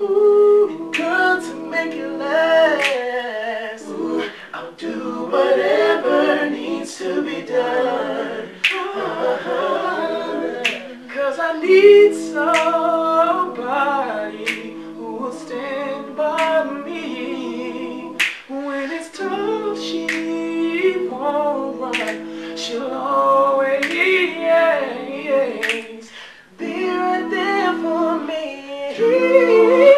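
Male a cappella vocal group singing in close harmony with no instruments, holding layered chords that change every few seconds, over sharp finger snaps.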